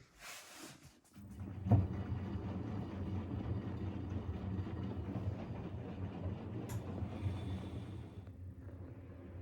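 Washing machine starting up about a second in with a knock, then running with a steady low hum that eases slightly near the end.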